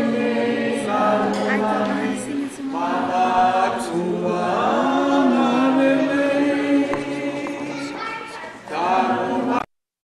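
Several voices singing together without instruments, choir-style. The singing cuts off suddenly near the end.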